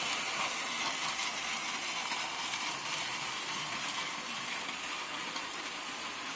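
Battery-powered Plarail toy train (Hong Kong MTR Airport Express model) running on plastic track: a steady whir of its small motor and gears with its wheels rattling along the rails, gently fading as it moves away.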